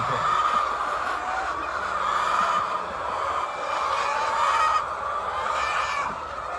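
A large flock of hens clucking and calling together: a steady, dense chorus of many overlapping calls.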